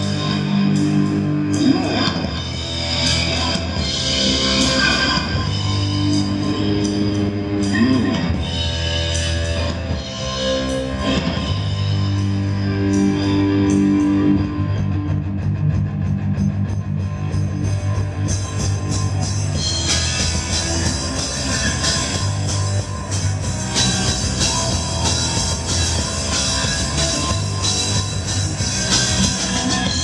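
Rock band playing live through a PA: distorted electric guitar, bass guitar and drum kit, with a few guitar notes bending in pitch. The cymbals grow louder about two-thirds of the way through.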